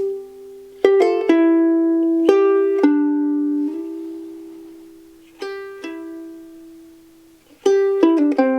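Soprano ukulele with an Adirondack spruce top and Tasmanian blackwood back and sides, plucked: a few notes and chords left to ring out and fade slowly, then a quicker run of notes near the end, with added reverb.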